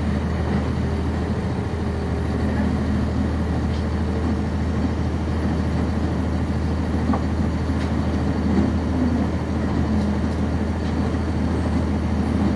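Cummins ISC diesel engine of a 1999 NovaBus RTS transit bus running steadily, heard from inside the passenger cabin as a low drone. A few light clicks from the cabin come through it.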